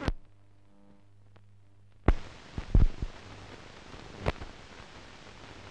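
Sharp clicks or knocks, about five of them with the loudest near the middle, over a steady hiss and a faint low hum. The hiss is almost gone for the first two seconds.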